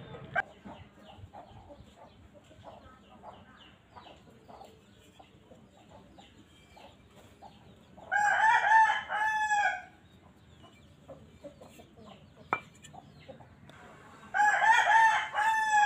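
A rooster crowing twice, each crow about two seconds long, the first about eight seconds in and the second near the end. A few faint clicks and two sharp knocks sound in between.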